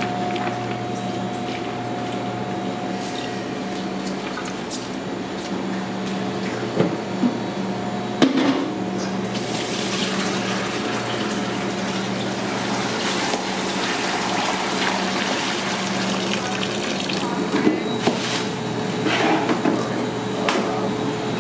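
Steady hum of kitchen machinery under an even rushing, water-like noise, with a few knocks and clatters.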